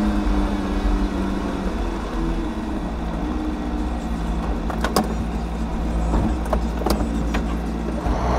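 John Deere 6115M tractor's four-cylinder diesel engine running under way, heard from inside the cab as a steady hum; its note drops a little under two seconds in. A few sharp clicks sound in the second half.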